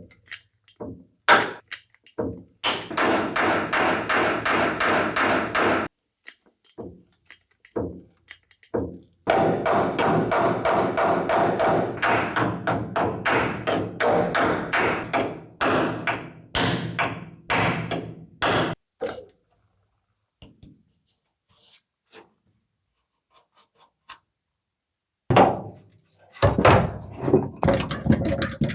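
Quick, repeated knocking in runs of a few seconds, with single knocks between the runs and a pause of several seconds near the end.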